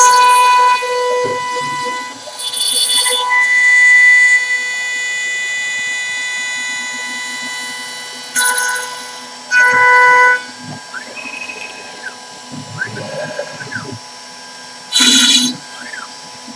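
CNC router spindle running with a steady high whine while its bit cuts into a wooden turkey box call blank turned on a rotary fourth axis. Loud bursts of cutting come about five times as the bit bites into the wood, and softer rising and falling whines sound between them as the machine's axes move.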